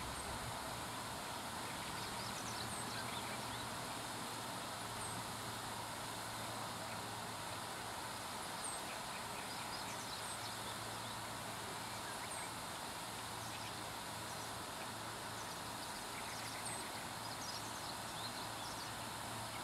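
Water pouring over a low concrete weir below a floodgate, a steady rushing, with faint high chirps of small birds scattered through it.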